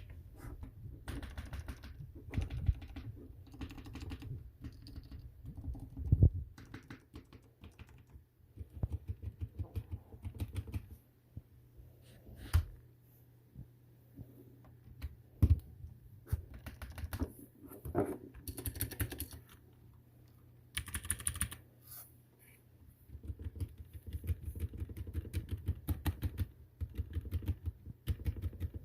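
Typing on a mechanical keyboard with clicky blue switches: bursts of rapid key clicks broken by short pauses, with a few louder single key strikes.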